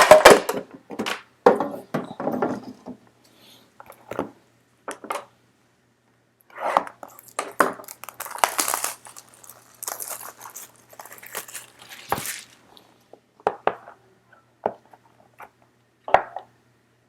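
A trading-card box and its packaging being opened and handled: a sharp knock at the start, then scattered taps, rustling, and crinkling of wrapper in short bursts.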